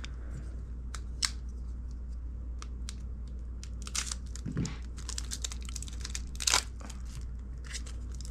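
Foil wrapper of a Pokémon trading-card booster pack being torn open and crinkled by hand: an irregular run of sharp crackles and rustles, loudest about a second in and again past the middle.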